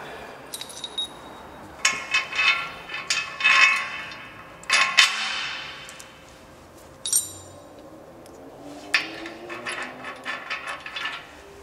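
Metal clinks and clanks as a bolt and fittings are handled against a metal slackline frame and pushed through the slackline's sewn end loop: a cluster of knocks about two seconds in, a sharp ringing clank around five seconds, and lighter clinks near the end.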